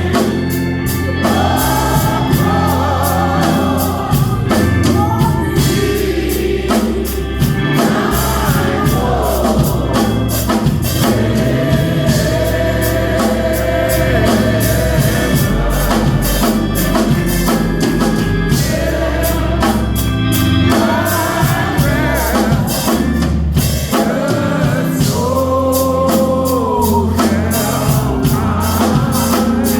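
Gospel music with singing voices over organ and drums.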